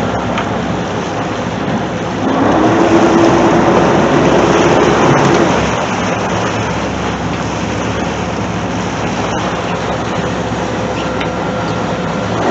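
Churning propeller wash and engine drone at the stern of a sportfishing yacht under way: a steady rush of water over a low hum. About two seconds in it grows louder for roughly three and a half seconds, and a steady mid-pitched hum slides up slightly as it starts.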